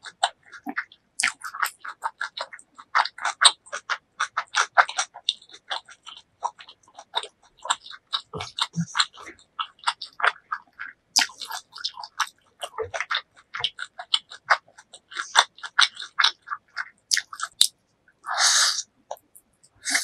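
Close-miked wet chewing of a mouthful of noodles: a steady run of short smacking mouth clicks. Near the end comes one brief hissy slurp as noodles are sucked in.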